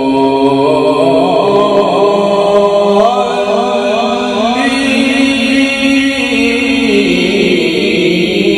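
A man reciting the Quran in a slow, melodic chant (tajweed style), holding long notes. About three seconds in, the held note breaks into a quick wavering ornament, then settles into a long higher note.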